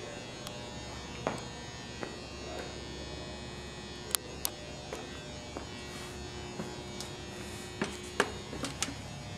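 Steady electrical hum with scattered sharp clicks and taps, a pair about four seconds in and a cluster near the end being the loudest.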